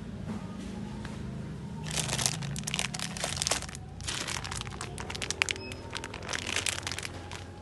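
Plastic packaging crinkling and crackling as it is handled, in three bouts about two, four and six seconds in, over a low steady background hum.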